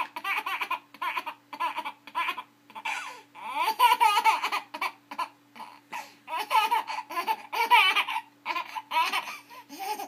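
A small child laughing hard in repeated high-pitched bursts, bout after bout. A faint steady hum runs underneath.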